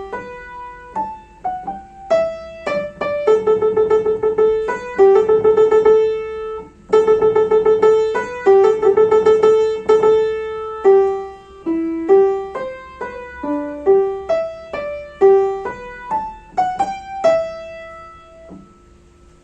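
Piano playing a single-line melody, with two stretches of fast repeated notes in the middle, then one final held note that fades away.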